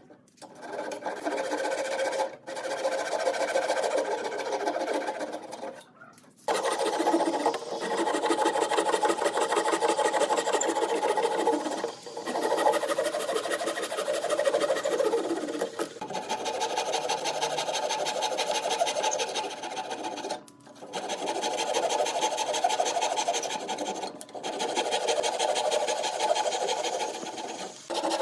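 Electric sewing machine stitching with a fast, even rattle, in runs of a few seconds with brief stops between them.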